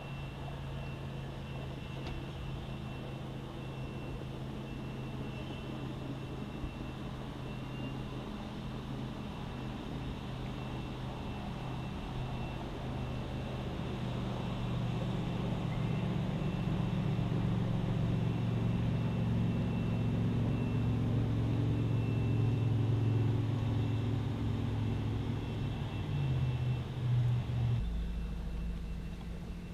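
A low, steady motor drone that grows louder from about halfway through, with a faint thin whine above it, then changes abruptly near the end.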